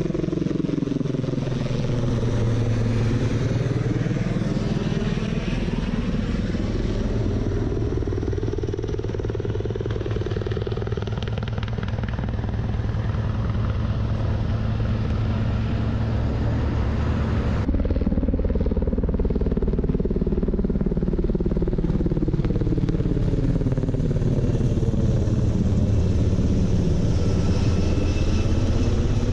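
Sikorsky S-76C helicopter flying overhead and away, its rotors and twin turbines running with a sound that sweeps up and down in pitch as it passes. About 18 seconds in, it gives way abruptly to a Sikorsky MH-60S Knighthawk helicopter passing low overhead.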